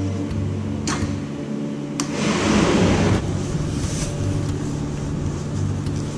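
Motorcycle that won't start: two sharp clicks as the starter is pressed, then a brief rushing noise about two seconds in, over a steady low hum.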